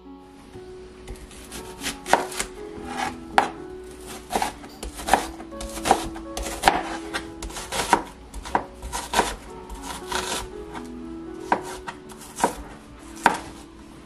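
Kitchen knife chopping vegetables on a cutting board, in uneven strokes about two a second, starting about a second in.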